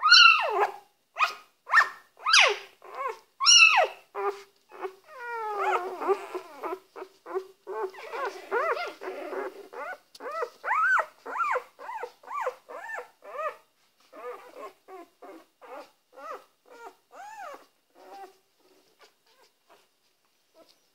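Four-day-old Dalmatian puppies crying: a rapid string of short, high cries that rise and fall in pitch. They are loudest in the first few seconds, overlap into a jumble around the middle, and thin out into fewer, fainter cries near the end.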